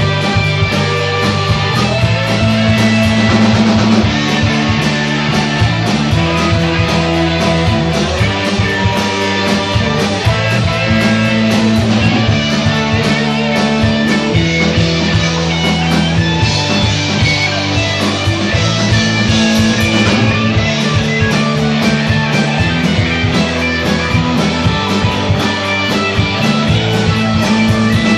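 Rock band playing: electric guitars, bass and drums with a steady cymbal beat.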